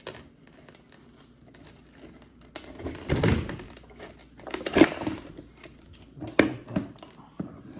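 A screwdriver tapped into a groove on a pool pump motor to knock a part free: a handful of scattered metal knocks and clatters, the loudest about three and five seconds in.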